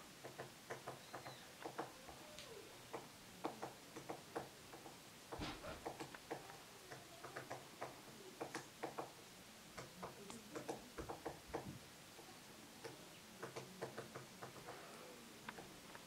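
Woodpecker pecking at wood: irregular single knocks, a few a second in short clusters, with one stronger knock about five and a half seconds in.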